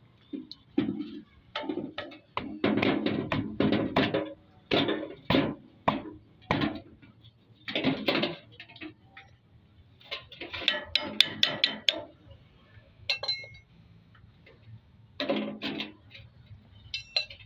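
Metal tools and engine parts knocking and clinking as they are handled, in irregular hits, with a quick cluster of sharp clinks about two-thirds of the way through and a brief metallic ring just after.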